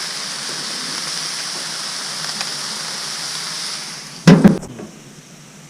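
Onions, peppers and mushrooms sizzling steadily in butter on a Blackstone flat-top griddle. About four seconds in there is one loud clunk, the griddle lid closing, and the sizzle then goes much quieter.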